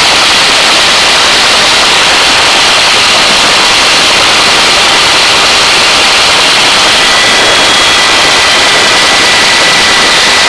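Hovering helicopter: a steady, loud rush of rotor and engine noise and wind at the open cabin door, with a faint high whine.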